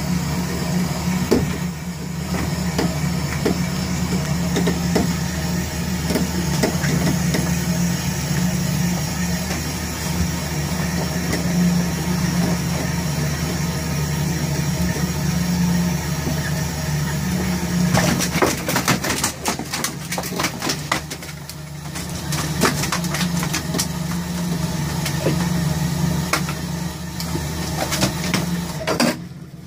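Fishing boat's engine running steadily with a constant low drone. A quick run of knocks and rattles breaks in about two-thirds of the way through.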